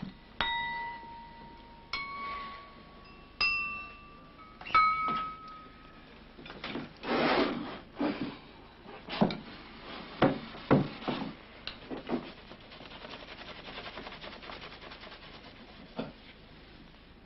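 Wine glasses tapped lightly, four ringing notes a second or so apart, each a little higher than the last. Then comes a run of knocks, clinks and rubbing on the table, fading to a faint hiss with one last click.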